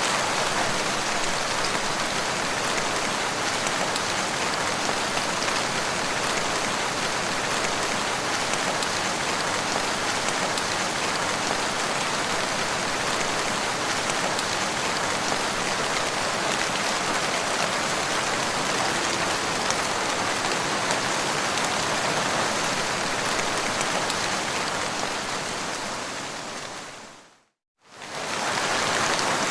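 Steady rain, an even hiss of drops falling on the ground. Near the end it fades out to a brief silence and comes straight back in.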